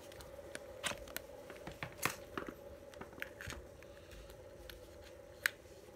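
Scattered light clicks and knocks of a cordless screwdriver being handled, with a sharp click about five and a half seconds in, over a faint steady hum. The motor is not running.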